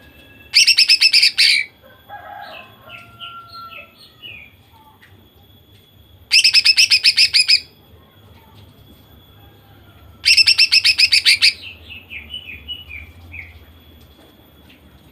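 Female greater green leafbird (cucak ijo) singing its rapid-fire 'nembak' song: three loud bursts of fast repeated notes, each about a second long. The first and last bursts trail into softer quick chirps that step down in pitch.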